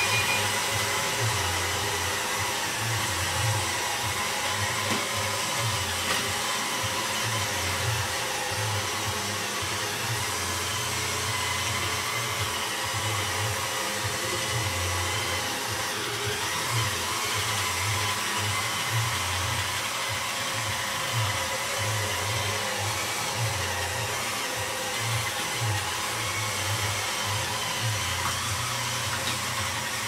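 iRobot Roomba robot vacuum running across carpet: a steady whirr from its vacuum and brush motors, with a low rumble that comes and goes.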